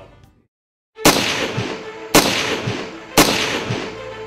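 Gunshots about once a second after a brief silence, each a sharp report followed by a ringing tail.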